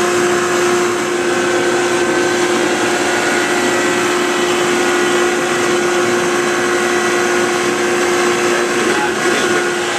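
A motorised Hacker block leveler running, its spinning cutter head planing the face of a wooden type block on the rotating table. It makes a steady machine noise with a constant whine.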